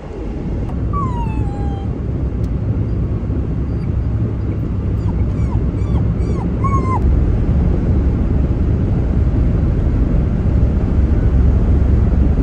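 Magyar Vizsla puppy whimpering over the steady low road noise inside a moving car: one long falling whine about a second in, then about five short high whimpers in quick succession around the middle.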